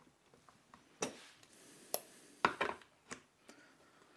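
A few sharp clicks and knocks, with some brief rubbing, as metal concealed cabinet hinges are handled and set onto a cabinet door panel on a workbench.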